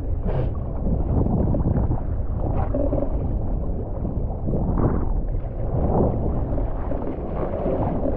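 Wind buffeting the microphone over rushing, splashing water, swelling and easing in gusts.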